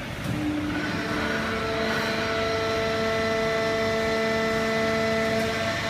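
Horizontal hydraulic waste paper baler and its feed conveyor running: a steady machine drone with a low hum and several steady whining tones that settle in about a second in.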